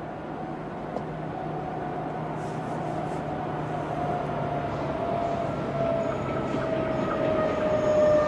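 Diesel freight train hauled by LPD class locomotive LPD 0002 approaching, growing steadily louder. A low engine drone sits under a high whine that slides slowly lower and becomes stronger near the end.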